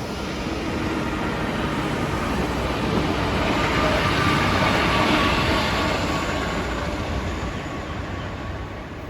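Electric passenger train passing through the station. The rumble builds to a peak about halfway through, with a faint whine above it, then fades away.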